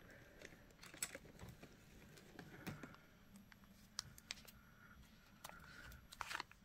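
Faint, scattered small clicks and light crinkling as a small plastic zip bag of shell pearl beads is handled.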